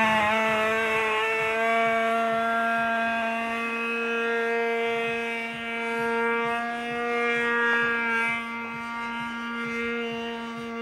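Super Tigre G-51 two-stroke glow engine of an RC Super Chipmunk model plane running at high speed in flight. It gives a steady high-pitched drone that swells and fades in loudness as the plane moves about the sky.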